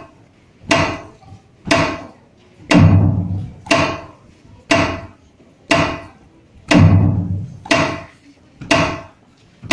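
Drum beats of the dance music in a slow, even pulse of about one strike a second, with a heavier, deeper hit on every fourth beat.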